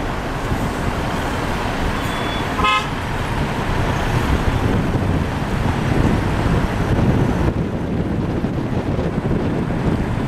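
Vehicle driving on a rough dirt road, heard from inside the cabin: a steady rumble of engine and tyres, with one short horn toot between two and three seconds in.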